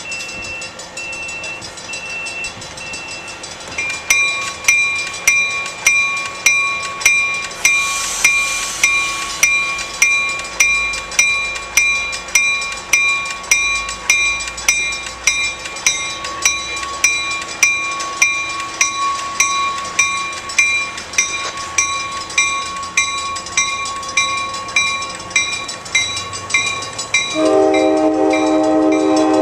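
Railway warning bell ringing steadily, about one and a half strikes a second. Near the end a train's multi-note air horn starts to sound over it.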